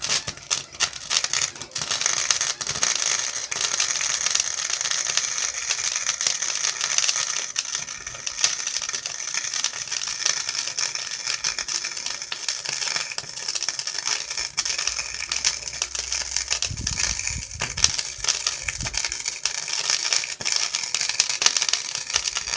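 Electric arc welding: one continuous bead of steady, sizzling crackle that starts abruptly and cuts off suddenly after about 22 seconds.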